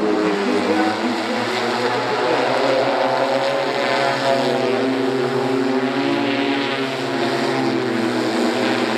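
Pivotal electric VTOL aircraft's eight propellers humming overhead: a steady multi-tone drone whose pitches waver slightly as the aircraft tilts from forward flight toward a hover for landing.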